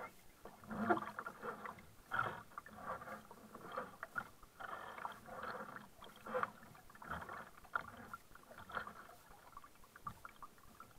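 Double-bladed kayak paddle strokes: the blades dipping and pulling through the water with uneven splashes and drips, about once a second.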